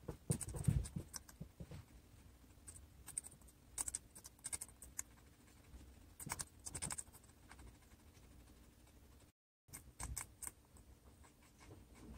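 Guinea pig chewing crisp sweet pepper: irregular clusters of small, sharp crunches and clicks. The sound cuts out briefly about nine seconds in.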